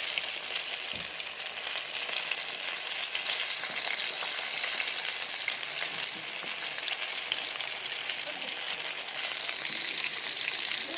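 Batter-coated chicken pieces deep-frying in hot oil: a steady sizzle with fine crackling and popping.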